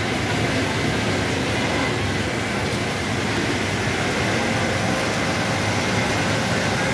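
Steady din of a garment factory sewing floor: many industrial sewing machines running at once, an even mechanical hum with no breaks.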